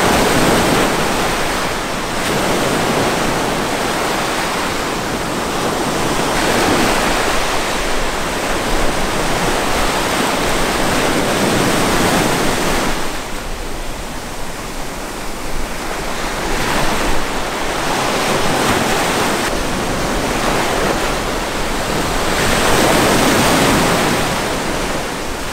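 Ocean surf breaking and washing up a sandy beach, the noise swelling and easing every few seconds as each wave comes in.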